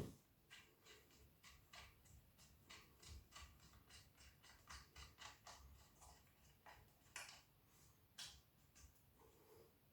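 Faint, irregular metallic clicks and ticks, two to four a second, as 13mm bolts on the furnace body are undone.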